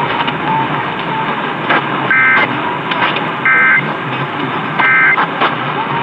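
Emergency Alert System end-of-message data bursts received on AM radio and played through a Pioneer car stereo: three short, shrill two-tone digital bursts about 1.4 s apart over steady AM static. They mark the end of the required monthly test.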